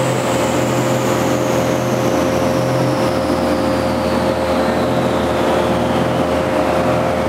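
Dynamometer and the AWD Eagle Talon's drivetrain just after a power pull: a loud, steady mechanical noise with a constant hum, and a high whine that falls slowly in pitch throughout as the rollers and drivetrain spin down.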